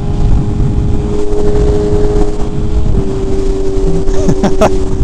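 Sport motorcycle engine running steadily at highway cruising speed, heard from inside the rider's helmet over heavy wind rush. Its note holds steady and dips slightly in pitch about three seconds in.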